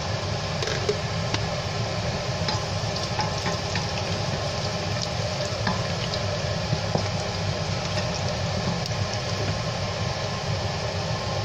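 Garlic, green chillies, dried red chillies and panch phoron sizzling steadily in hot oil in a steel pot, with light scattered taps of a wooden spatula stirring, over a steady low hum.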